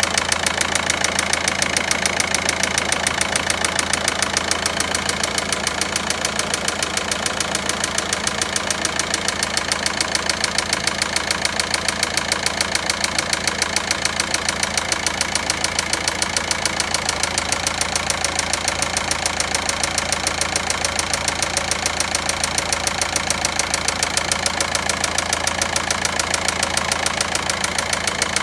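Volkswagen Passat 1.9 diesel engine idling with a regular knock repeating several times a second, the abnormal engine noise being diagnosed.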